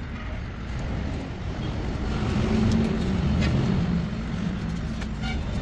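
Low, steady engine rumble of a motor vehicle, swelling about halfway through and easing off again, with a few light clicks over it.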